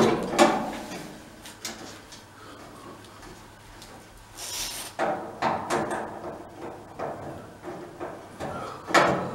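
Scattered knocks and clanks of metal grill parts and a hand tool being handled and fitted during grill assembly, with a short rustle about four and a half seconds in and a loud knock near the end.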